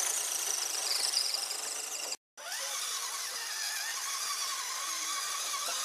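Electric motor and geared drivetrain of a radio-controlled scale rock crawler whining as it drives, the pitch wavering with the throttle. The sound drops out for a moment about two seconds in, then resumes.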